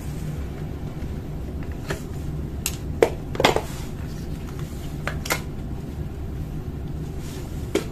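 Plastic clicks and knocks as a 49A/53A laser toner cartridge is handled and pulled apart into its drum unit and toner hopper. The sharpest knocks come about three seconds in, over a steady low hum.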